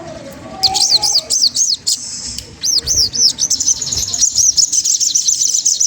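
A sogon trotol bird singing: two short series of high, arching chirps, then from about halfway a fast, rapid run of short repeated notes.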